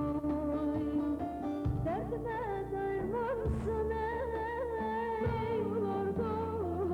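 Turkish song: a female singer's ornamented, wavering melodic line held over steady instrumental backing.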